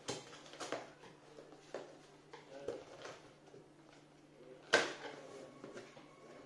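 A cardboard box and its packing being opened by hand: a series of short rustles, scrapes and crinkles, the loudest nearly five seconds in.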